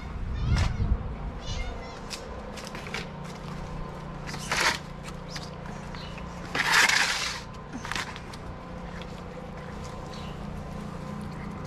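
A cat meowing about a second in, then the crinkle and clatter of clear plastic food trays being handled and set down on tiles, the loudest burst lasting about a second just past the middle. A steady low hum runs underneath.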